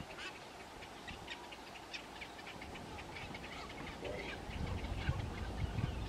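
Birds calling: many short, high chirps scattered throughout. A low, rough sound builds up near the end.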